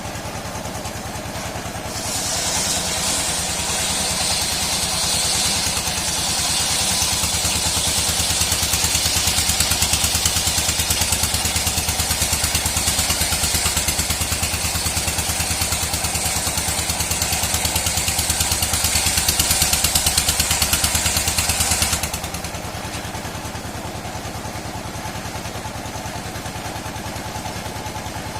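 A sawmill machine runs steadily. About two seconds in, its saw bites into dry mahogany, and a loud, high hissing cut runs for some twenty seconds before the blade comes free and the machine runs on without load.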